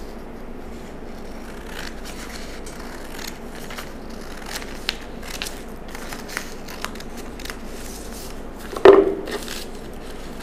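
Scissors cutting through a folded paper sleeve pattern in scattered faint snips. There is a single louder knock about nine seconds in.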